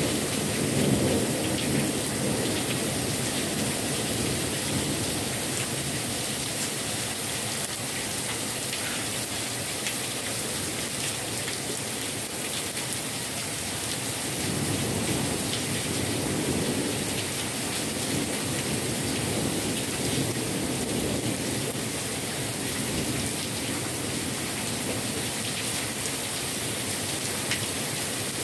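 Heavy rain falling steadily, a dense even hiss of rain on leaves and pavement, swelling slightly at times.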